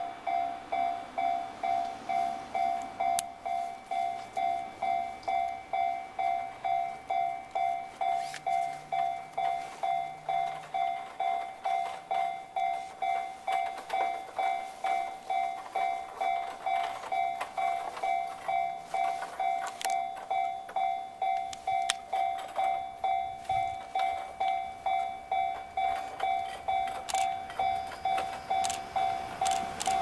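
Japanese railway level-crossing warning bell ringing in a steady, even electronic ding about twice a second while the crossing is closed for an approaching train. Right at the end the noise of the arriving train swells in over it.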